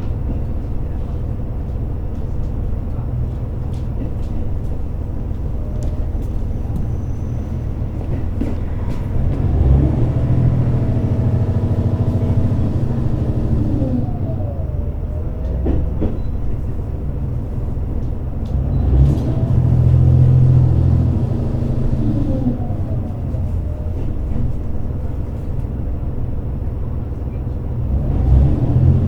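Onboard sound of a JR Hokkaido H100-series diesel-electric railcar: a steady low rumble with whining tones that rise and fall. The sound swells three times, about ten seconds apart.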